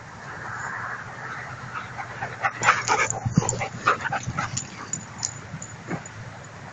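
German shepherd dogs play-fighting close by, six-month-old pups among them, with a flurry of short yips, barks and whines packed into the middle few seconds and one more near the end.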